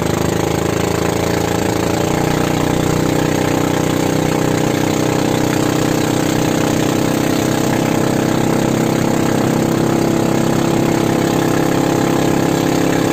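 A small fishing boat's engine running steadily while the boat is under way, an even drone with a constant hiss over it.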